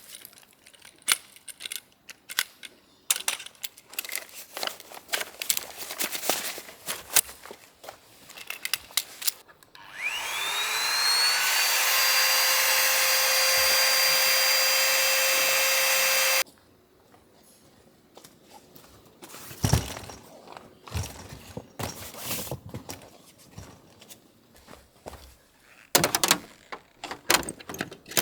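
Small electric motor spinning up with a rising whine, running steadily for about six seconds and cutting off abruptly, between stretches of clicking and rustling as gear is handled.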